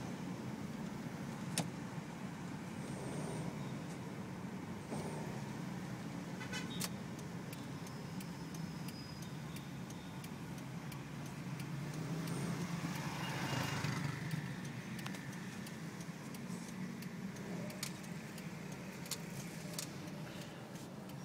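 Toyota Rush engine running steadily through an exhaust fitted with a turbo whistler tip, with a few brief thin high tones and a short swell in sound about halfway through.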